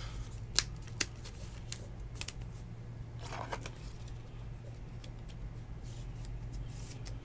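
A trading card and a clear rigid plastic card holder being handled: scattered faint plastic clicks and a brief rustle as the card is slid into the holder, over a low steady hum.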